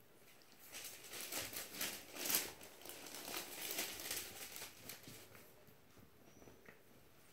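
A large sheet of paper crinkling and rustling as Havanese puppies scramble and wrestle on it, in irregular bursts that are loudest about two seconds in and die down near the end.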